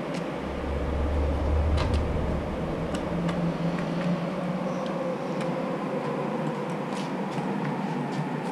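Small wheels of a child's smarTrike rolling over concrete balcony pavers: a steady rumble with a scattering of short light clicks.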